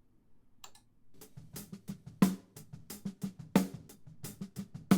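A drum kit playing a steady beat, heard through the snare drum and hi-hat close microphones soloed together: bright hi-hat ticks between louder snare hits, with some controlled bleed from the rest of the kit. The playing starts about a second in.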